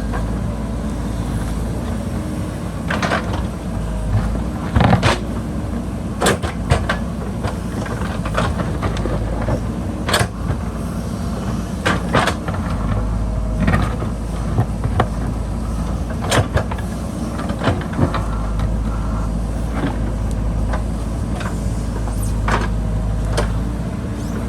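JCB backhoe loader's diesel engine running steadily under load, with repeated sharp knocks and clanks, spaced irregularly about a second apart, as the bucket works the rocky hillside.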